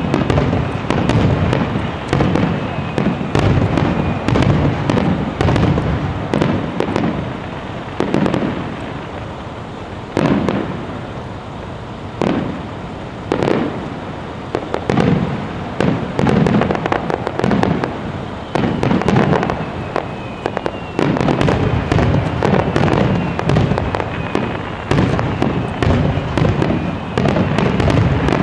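Aerial firework shells bursting in a rapid barrage, many booms and crackles in quick succession. The bursts thin out for a few seconds in the middle, then come thick again.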